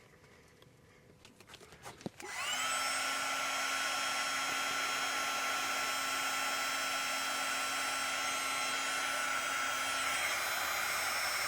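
A few faint clicks, then about two seconds in a small electric motor starts up and runs steadily with a constant whine. Its tone shifts slightly near the end.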